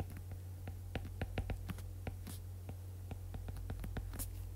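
A stylus tip tapping and clicking on an iPad's glass screen while handwriting, with irregular light ticks several times a second and a few brief scratchy strokes, over a steady low hum.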